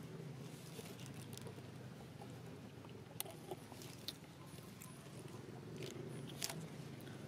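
Long-tailed macaque biting and chewing food held in its hands: a few faint, sharp crunches and clicks scattered through the middle and near the end, over a low steady hum.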